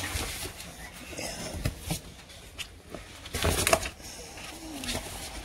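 Rustling and scuffling from American Bully puppies moving on a blanket in a plastic tub, loudest about three and a half seconds in, with a short faint falling whine near the end.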